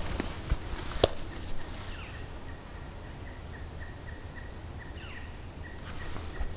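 Quiet forest ambience with a sharp click about a second in, then a faint, even series of high chirps, about three a second, with two short descending calls among them.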